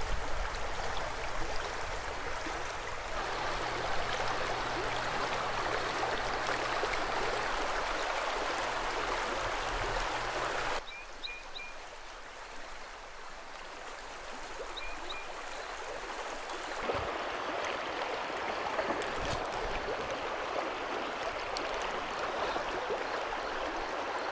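River current running over riffles, a steady rushing of water. It drops suddenly about eleven seconds in, then builds back up.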